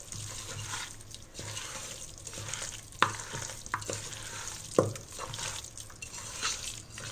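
Chicken pieces being mixed into a wet yogurt and spice marinade in a bowl: continuous wet stirring and mixing sounds, with three sharp clicks against the bowl in the middle.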